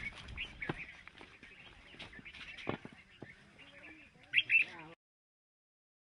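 Small birds chirping, with scattered clicks and a sharp knock about halfway through; a loud pair of sharp chirps comes near the end.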